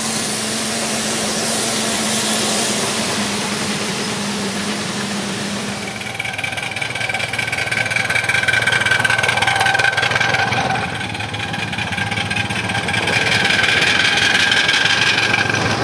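Miniature live-steam riding locomotive running past on a small-gauge track, hauling a passenger car. The sound changes abruptly about six seconds in, with a steady high whine over a low running hum from then on.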